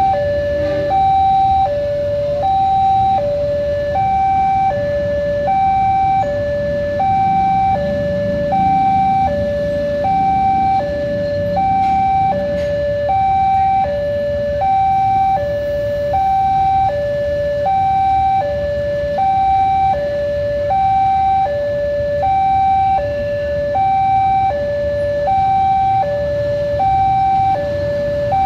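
Railway level-crossing warning alarm sounding a steady two-tone signal that alternates evenly between a higher and a lower pitch. Underneath it is the low rumble of a passenger train passing on the rails.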